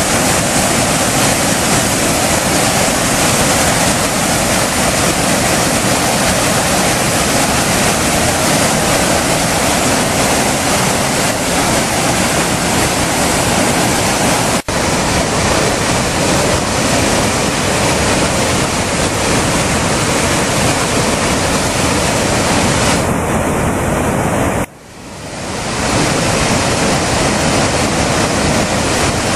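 Waterfall, heavy white water pouring over rock: a loud, steady rush of falling water. It breaks off for an instant about fifteen seconds in, and a few seconds before the end it drops away sharply, then swells back over about a second.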